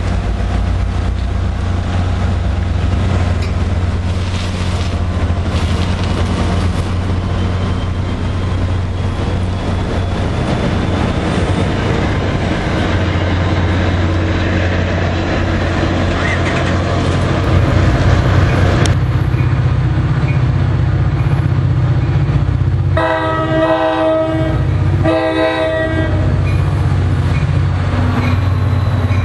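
An NJ Transit multilevel commuter train rolling past at close range, with a steady low diesel rumble and wheel-and-rail noise. Near the end a train horn sounds two short blasts.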